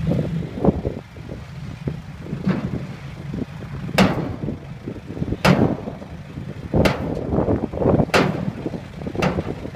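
Six-wheel dump truck running with its tipper body coming down after dumping soil. The engine hums steadily, and from about four seconds in there is a series of five sharp knocks, roughly one every second or so.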